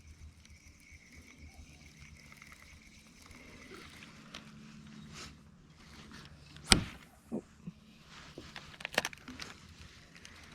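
Sharp knocks and clatter of fishing gear against a small paddled boat's hull. The loudest knock comes about seven seconds in, with a couple of smaller ones just after and a cluster near the end. A faint steady high buzz runs through the first few seconds.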